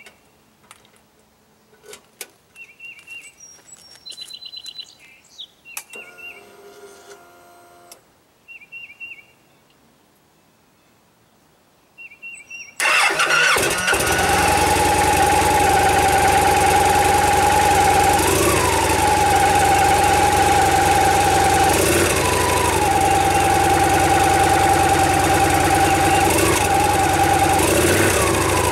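A 2014 Victory Cross Country's V-twin engine, on its stock baffled mufflers, is started about halfway through and then idles steadily, with four short blips of the throttle near the end. Before it starts, birds chirp and a few small clicks are heard.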